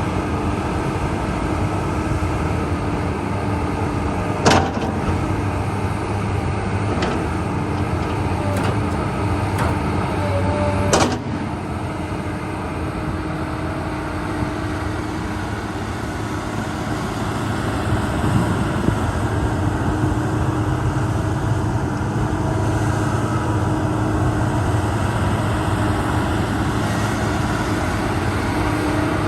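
Komatsu PC200-7 hydraulic excavator's diesel engine running steadily, with two sharp clanks, about four and a half and eleven seconds in.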